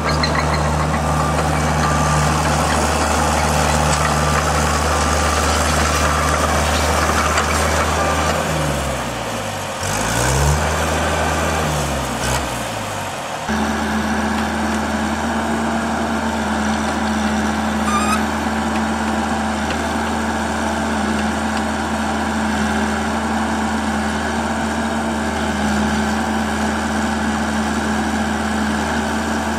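Engine of a compact tracked rock-drill rig running steadily while it moves and raises its drill boom. Its speed dips and recovers about a third of the way in, then it settles into a new steady note for the rest.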